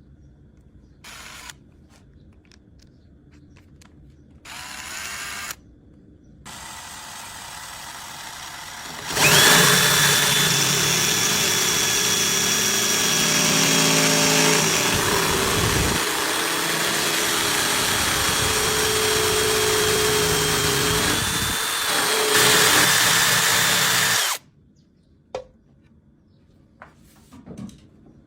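A few short bursts of noise, then a power tool runs steadily for about fifteen seconds with a high whine, and it stops suddenly.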